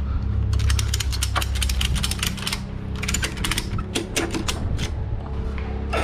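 Ratchet strap buckle being cranked tight over a load: quick runs of metal clicks from the pawl as the handle is pumped, in two main bursts with a few stray clicks after. A steady low hum runs underneath.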